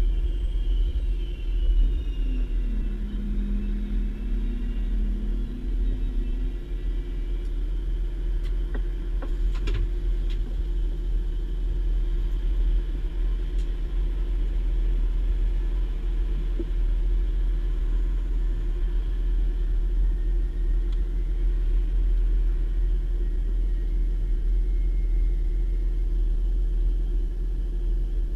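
DB Class 612 diesel tilting railcar heard from on board while running: a steady low rumble of engine and running gear. A lower hum dips and comes back up about two to six seconds in, and a few sharp clicks come around nine to ten seconds.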